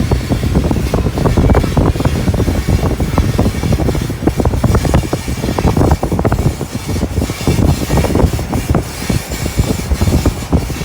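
Abnormal noise in a Mazda Bongo-based AtoZ Amity camper van while driving: a dense, irregular clattering of knocks and rattles over low road rumble.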